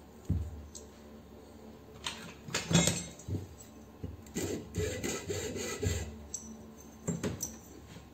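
A flat metal bar scraping and rubbing against a pressure washer motor's finned stator housing in a run of short strokes, with a knock near the start as the stator is handled.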